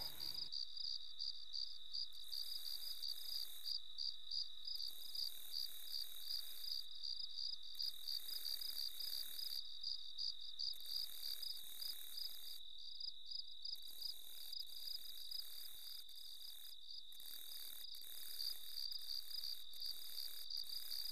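Crickets chirping in an even rhythm of several chirps a second over a continuous high insect trill: a night-time insect chorus.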